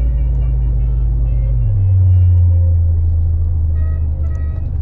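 Bass-heavy music playing on the car stereo inside a moving car. The deep bass note steps to a new pitch a little under two seconds in, with short melodic notes above it, over the car's road noise.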